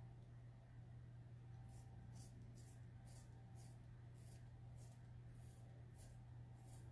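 A colored pencil being sharpened after its point broke: faint, regular scraping strokes of the pencil sharpener, about two a second, starting just under two seconds in, over a steady low hum.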